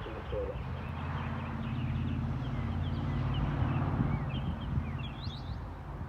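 A vehicle engine's low, steady hum swells through the middle and fades, with small birds chirping. Quick upward chirps come near the end.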